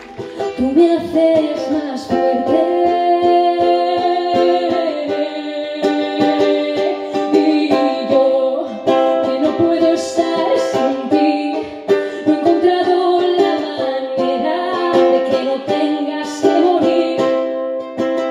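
A woman singing into a microphone while strumming chords on a ukulele.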